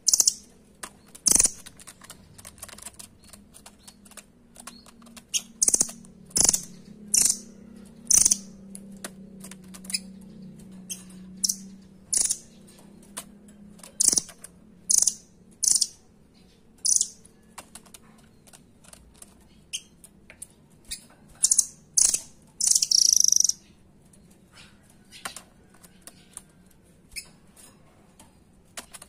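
Blue nuthatch giving short, sharp, high-pitched call notes, singly and in quick pairs, at irregular intervals, with light clicks in between from the bird moving about its cage.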